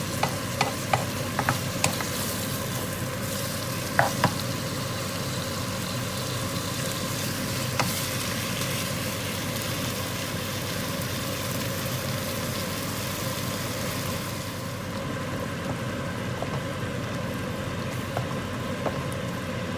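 Nam prik ong, a pork and tomato chili paste, sizzling in a pan as it is stirred, with a few sharp taps and scrapes of the utensil against the pan, most of them in the first few seconds. The hiss of the sizzle softens about three-quarters of the way through.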